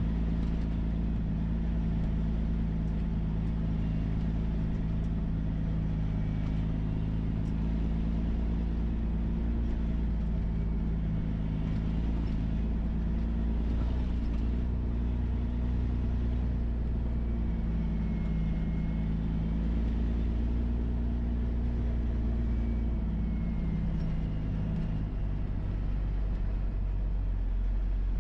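Diesel engine of a triaxle dump truck hauling a pup trailer loaded with dirt, running steadily as it drives along a dirt road.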